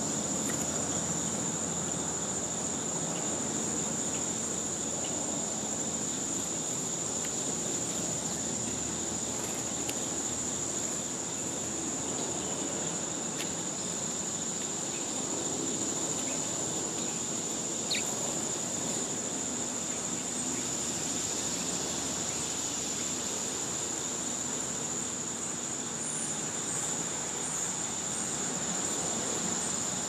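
Steady high-pitched chorus of summer insects, one unbroken trill held throughout, over a low, even background rumble.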